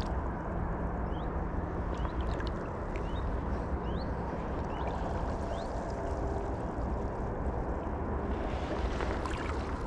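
Water swishing and sloshing around waders as a person wades through a shallow lake, with short rising bird chirps now and then. The water noise turns brighter and splashier near the end.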